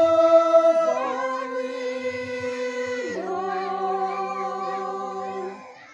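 A small mixed group singing a Naga folk song together without accompaniment, holding long notes in three phrases that each step lower in pitch. The last phrase breaks off near the end.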